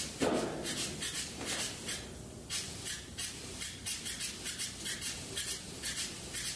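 Polyurea spray gun hissing in short, sharply cut bursts, about three or four a second, with a dull thump just after the start.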